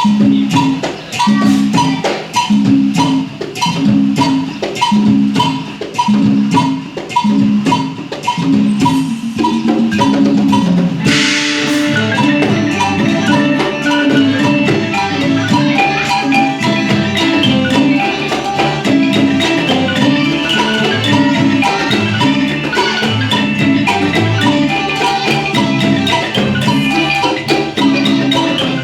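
Isan folk dance music led by a pong lang log xylophone over a steady clicking beat. About eleven seconds in, more instruments join and the music gets fuller.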